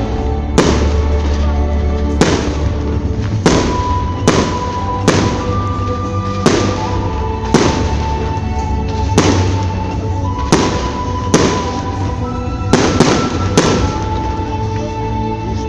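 Fireworks going off in a steady series of sharp bangs, about one a second, with music playing underneath throughout.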